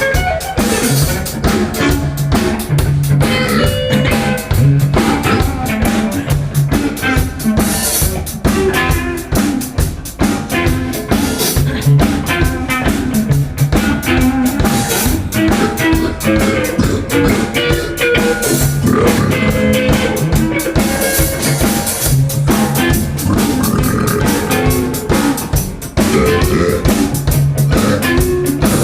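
Music with a drum kit and guitar playing a steady groove.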